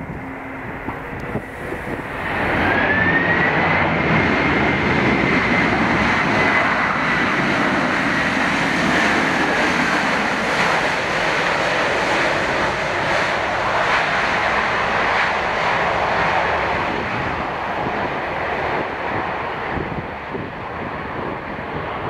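Boeing 767 airliner's jet engines spooling up into reverse thrust just after touchdown. There is a rising whine about two and a half seconds in, then a loud, steady engine noise that holds and slowly eases as the plane slows on its landing roll.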